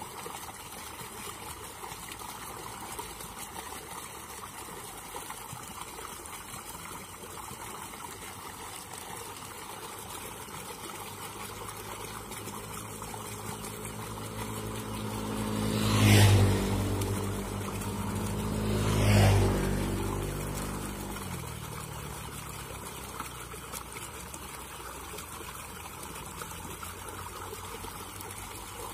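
Steady trickle of flowing water, with a motor vehicle passing close by. The engine swells to two loud peaks a few seconds apart just past the middle, then fades away with falling pitch.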